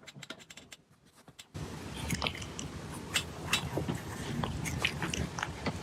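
An animal chewing, with a few soft clicks at first and then a steady run of crisp crunching from about a second and a half in.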